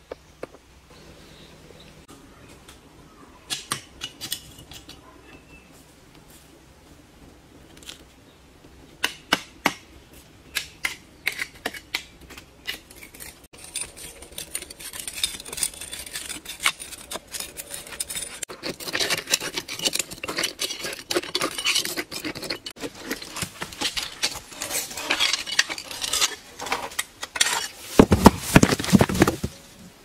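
A metal blade scraping and clinking in a crack in a stone boulder, as scattered sharp ticks that grow denser and louder, with a cluster of heavier knocks near the end.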